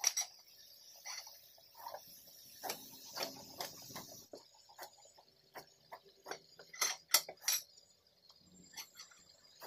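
A truck tyre being cut apart by hand with a steel bar and pipe tool: irregular scraping, clicks and knocks of metal against rubber, with three sharp knocks close together about seven seconds in.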